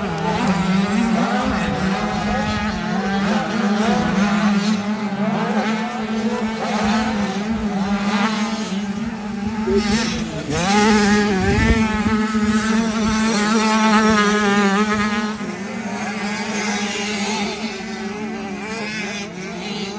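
Motocross bike engines revving up and down as riders race around the sand track. About halfway through, one bike passes close and is loudest, rising in pitch again and again as it accelerates through the gears, over a steady low drone.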